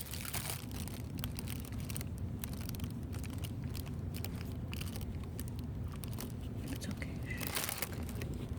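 A congested cat's snuffly, crackling breathing over a steady low rumble, with a brief high squeak near the end.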